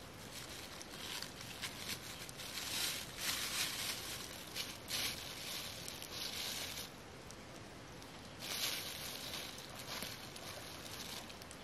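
Thin plastic bag crinkling and rustling as a hand rummages in it, in irregular bursts, with a pause around seven seconds in.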